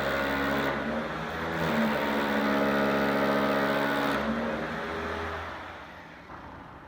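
Power tool motor running steadily, its sound shifting a couple of times as it works, then winding down and fading near the end.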